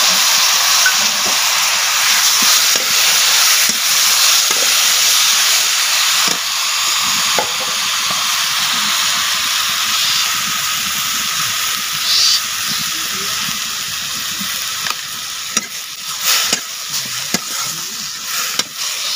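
Tomatoes and brinjal frying in hot oil in a metal kadai: a steady sizzling hiss that slowly eases. A steel ladle stirs and knocks against the pan, the knocks more frequent near the end.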